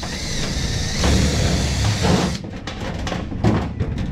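Cordless drill running under load, boring through the sheet-metal deck panel of a race car for a couple of seconds before stopping abruptly. A sharp knock follows near the end as the drill is set down on the panel.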